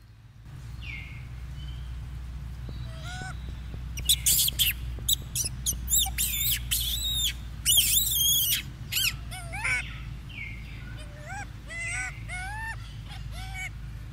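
A baby macaque squealing in a run of short, high-pitched calls that arch up and down in pitch, loudest and most crowded together in the middle, then spaced-out rising squeaks near the end.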